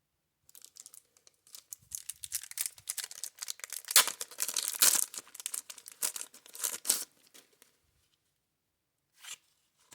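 Paper wrapper of a 1990 Score baseball card wax pack being torn open and crinkled, a dense crackling that is loudest about four to five seconds in and stops after about seven seconds.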